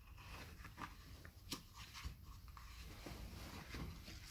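Faint rustling and a few soft ticks of stiff, glossy photo-book pages being turned by hand.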